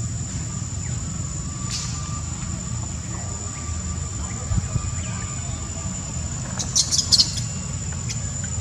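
Outdoor ambience of a steady high-pitched insect drone over a low rumble, with a cluster of short, sharp, very high squeaks about seven seconds in.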